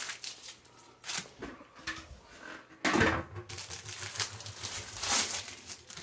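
Clear plastic dome lid of a Stir Crazy popcorn popper being lifted off and handled: a series of light plastic clatters and knocks, the loudest about three seconds in.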